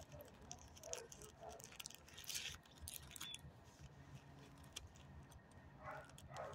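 Near silence: quiet outdoor ambience with faint scattered clicks and short rustles.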